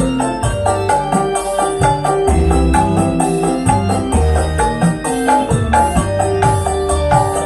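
Loud music with a steady beat and melodic pitched lines, played through a PA sound system during a sound check.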